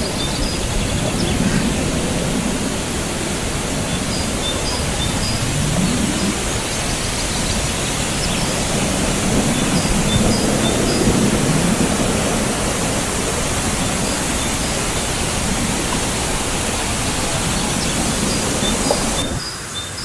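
Man-made waterfall pouring over rockwork into a pool: a steady rushing noise, with faint high chirps repeating about once a second. The rushing drops away abruptly near the end.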